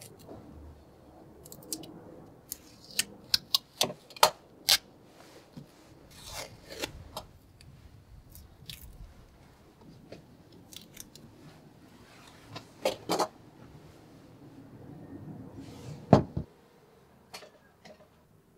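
Masking tape being peeled off freshly painted cast-iron vise parts, with a rustling, tearing sound. Sharp clicks and knocks come from handling the metal parts on a wooden bench, the loudest a single knock near the end.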